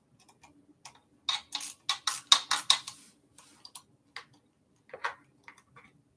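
Clicks and taps of small parts being handled and fitted on an e-bike's handlebar: a quick run of about eight sharp clicks between one and three seconds in, with scattered lighter ticks around it.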